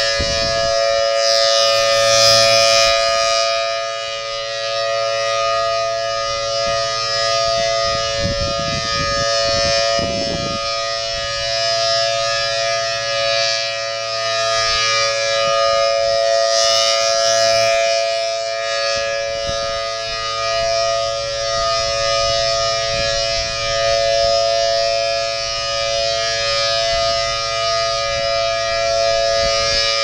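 Federal Signal Thunderbolt 1000T outdoor warning siren sounding a steady alert tone during a siren test: the pitch holds level while the loudness swells and fades as the rotating horn sweeps around.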